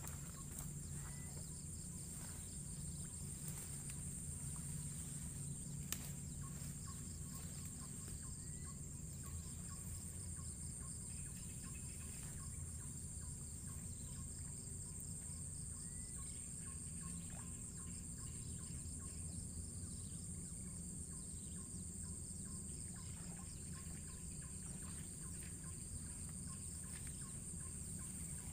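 Steady high-pitched insect chorus with a pulsing trill beneath it and scattered short bird chirps, over a steady low rumble; one sharp click about six seconds in.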